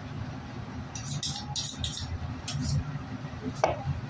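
Steady low machine hum, with a few quick high scraping strokes about a second in and again just before the middle, and one sharp click near the end.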